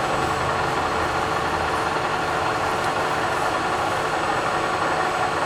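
Clausing CNC lathe running with a steady mechanical hum and a constant mid-pitched whine, unchanging throughout.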